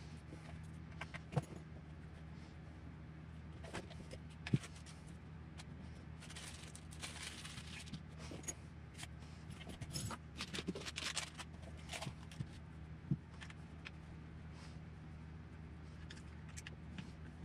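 Hands handling plastic RC truck parts and small tools on a workbench: scattered clicks and knocks, with stretches of rattling and rustling in the middle, over a steady low hum.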